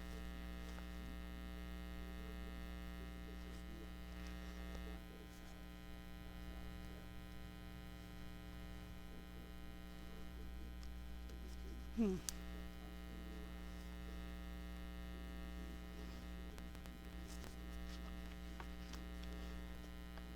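Steady electrical mains hum with faint scattered handling ticks, and one brief sharp sound about twelve seconds in.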